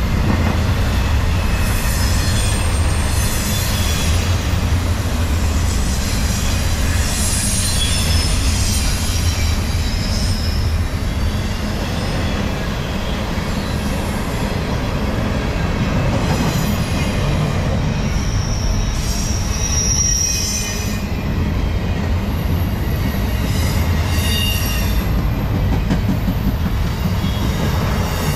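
Double-stack intermodal freight train of container well cars rolling past at close range: a steady rumble of steel wheels on rail, with brief high-pitched wheel squeals now and then.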